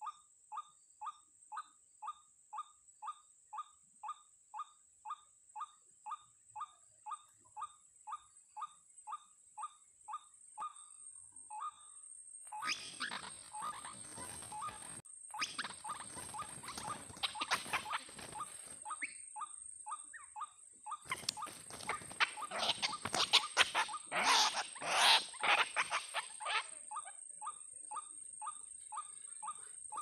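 White-breasted waterhen (ruak-ruak) call repeating about twice a second. It breaks off and gives way to a long, loud, harsh flurry of croaking and wing-flapping as a waterhen struggles in the snare. Near the end the regular calls come back.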